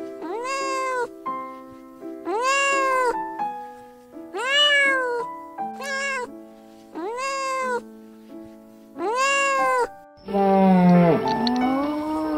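A domestic cat meowing six times, about two seconds apart, each meow rising and then falling in pitch, with one short one in the middle. Near the end, a lower, noisier animal call takes over. Background music plays throughout.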